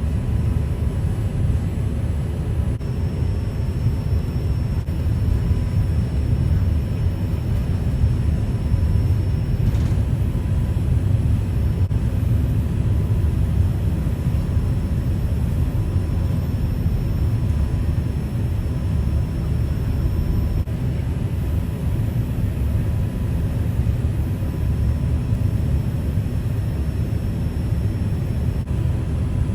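Steady low rumble of an airliner taxiing, heard inside the cabin, with faint steady whine tones from the engines at idle.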